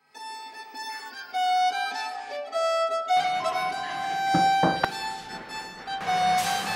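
Background music led by a violin. From about three seconds in, kitchen noises sit under the music: a few sharp knocks, then a short hiss near the end.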